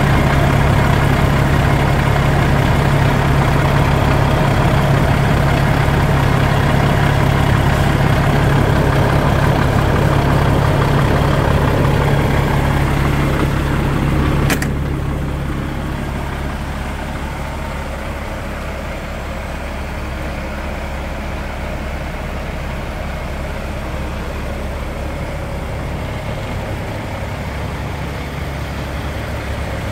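DAF XF 95.430 truck's diesel engine idling steadily. It is loud and close for the first half; a sharp click comes about halfway, and after it the engine is fainter.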